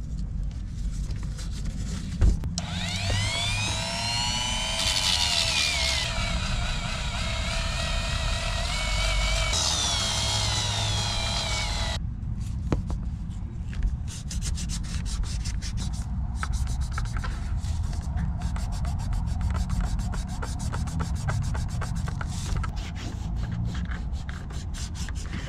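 Dremel rotary tool grinding old glue off a shoe sole. Its whine wavers and dips in pitch as it is pressed to the work, then it stops about twelve seconds in. Quick scratchy rubbing and scraping on the sole follows.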